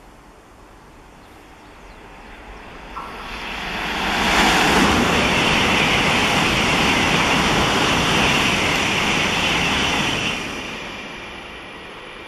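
N700-series Shinkansen bullet train passing through the station at speed without stopping: a rising rush of wheel and wind noise, loud and steady for about six seconds as the cars go by, then fading away.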